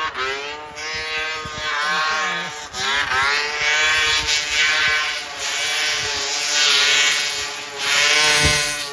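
Vintage snowmobile's two-stroke engine running hard at high revs, its pitch wavering and dipping briefly with the throttle as the sled rides along.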